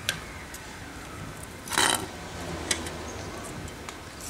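Handling of a steel anvil plate and chainsaw guide bar in a plastic nose-changer jig: light clicks and taps, with one short scrape or clatter of metal a little under two seconds in.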